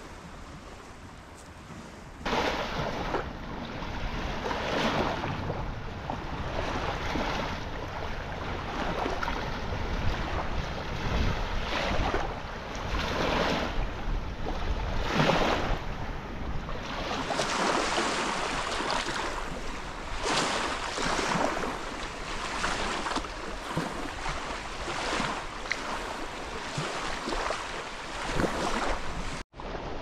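Small lake waves lapping and washing onto the shore in a wind, in repeated swells every second or two, with wind rumble on the microphone. The wash comes in sharply about two seconds in.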